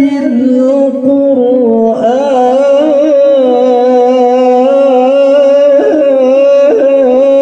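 A man singing a long, drawn-out melismatic phrase in Qur'anic recitation style, amplified through a microphone. The pitch winds up and down throughout, with short breaks near six and near seven seconds.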